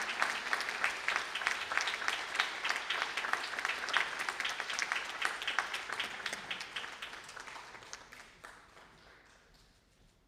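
Audience applauding, a dense patter of hand claps that gradually dies away over the last few seconds.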